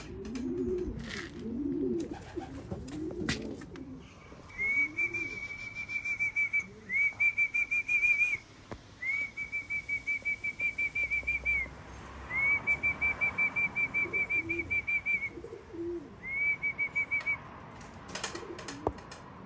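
Racing pigeons cooing in the loft, with a few sharp clicks. From about four seconds in come five runs of a fast, even trilled whistle held at one high pitch, each run lasting one to three seconds, then low cooing again near the end.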